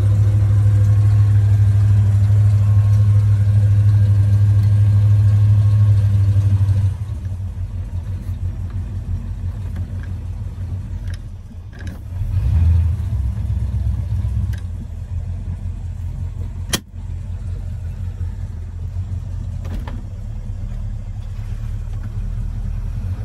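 Carburetted Ford Windsor 351 (5.8 L) V8 marine engine running at a steady, higher speed, then throttled back about seven seconds in to a slower idle. There is a brief swell in engine sound around twelve seconds as the throttle/shift lever is worked, and a single sharp click a few seconds later.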